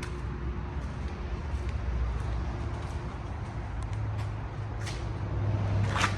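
An engine running steadily at idle, a low rumble, with a few light ticks and a short louder sound near the end.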